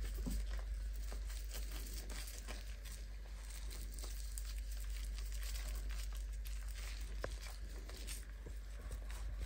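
Hands rubbing and squeezing a wet kitten's fur as it is washed in a sink: soft, irregular handling noises with scattered small clicks, over a steady low hum.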